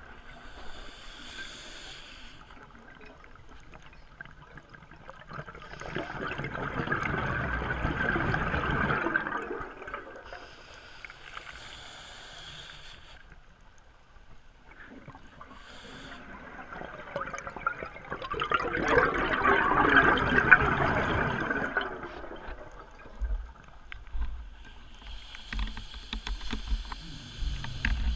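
Scuba diver breathing through a regulator, heard underwater. Each inhale is a short hiss, and each exhale is a loud rush of bubbles lasting a few seconds. The exhale rush comes twice, about twelve seconds apart.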